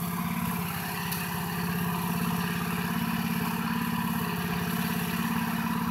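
An engine running steadily at idle: an even, low hum with a fast, regular pulse.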